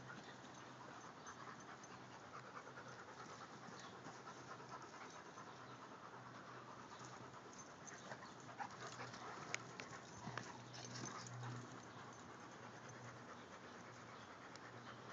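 Dogs panting as they play-wrestle, faint, with a few short sharp clicks about eight to ten seconds in.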